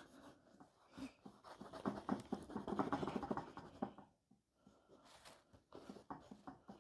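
A black drawing stick scratching over paper in quick shading strokes. The strokes are busy for the first few seconds, stop briefly, then come back as a few shorter strokes near the end.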